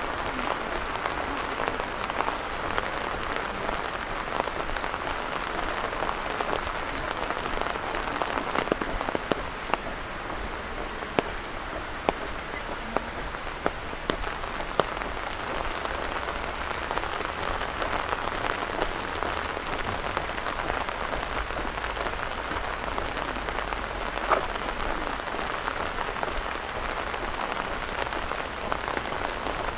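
Steady rain falling, an even hiss with scattered drops ticking close by.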